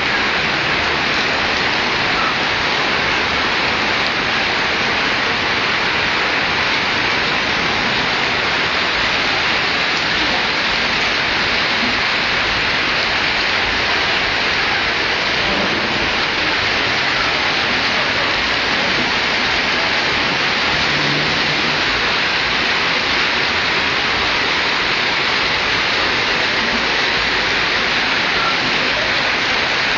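Steady heavy rain falling onto roofs and a flooded courtyard: a continuous, even hiss that does not let up.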